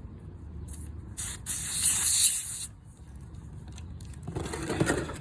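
A short burst of air hissing out of the car tire's valve stem, starting just over a second in and lasting about a second and a half, with a brief spurt just before it. Near the end comes a fainter rubbing, scraping sound of handling at the valve.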